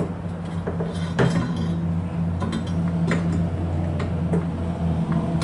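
Metal clinks and knocks as a coilover and its mounting hardware are worked into place: several sharp, irregular clinks over a steady low hum.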